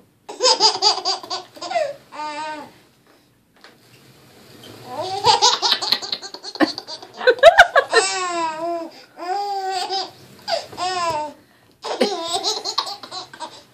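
Baby laughing hard in repeated bursts of giggles and squealing belly laughs, with a short pause about three seconds in.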